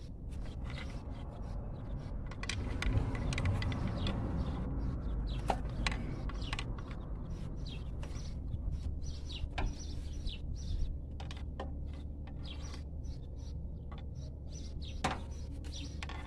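Pry bar working at an alternator in a car engine bay: scattered metal clicks and a few sharp knocks, with birds chirping throughout and a low hum joining about halfway through.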